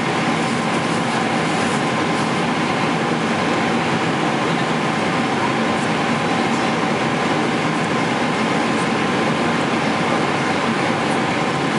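Steady in-flight cabin noise of a Boeing 777-300ER: the even rush of airflow and jet engines heard from a passenger seat, with a faint steady hum.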